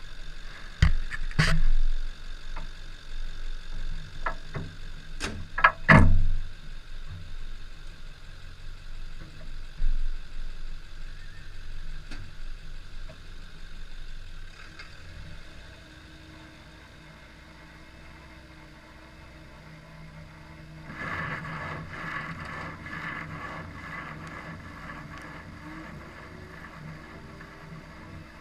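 Chevrolet Cavalier running, with steady engine hum and several sharp bangs and clatters in the first six seconds. It settles to a quieter hum, then a louder stretch of engine noise about three-quarters of the way through.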